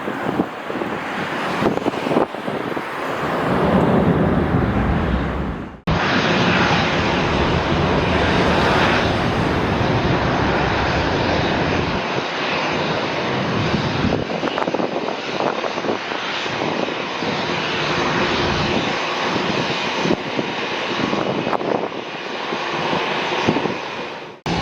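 Twin Rolls-Royce BR710 turbofan engines of a Bombardier Global Express XRS business jet running loud, a steady rushing jet noise. It breaks off sharply about six seconds in and comes straight back.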